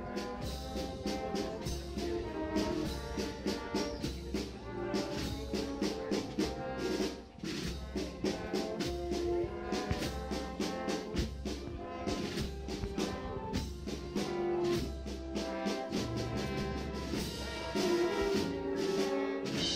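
Brass band with drums playing a Spanish Holy Week processional march, brass holding long notes over a steady drum beat.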